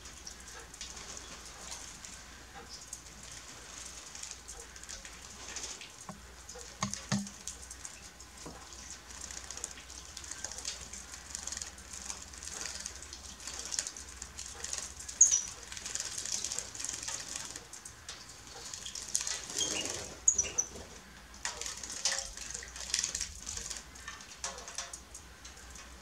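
Goldfinches bathing in a shallow metal water tray: repeated splashing and wing flutters, with a short high chirp about 15 seconds in and another about 20 seconds in.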